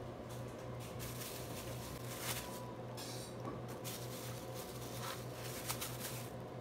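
Soft rustling and a few light taps as mozzarella slices are laid by hand onto a glass lasagna dish, over a steady low hum.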